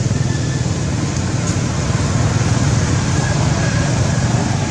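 Steady outdoor background noise, a low even rumble with no distinct calls or knocks standing out.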